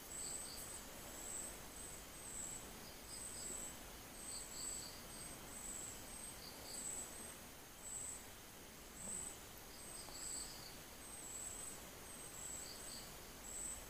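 Faint high-pitched insect chirping, cricket-like: short trills repeating about every second, with small groups of lower pulses now and then.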